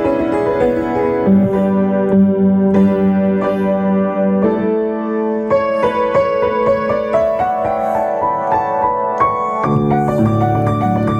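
Piano playing slow, sustained chords over held bass notes, the harmony changing about a second in and again near the end.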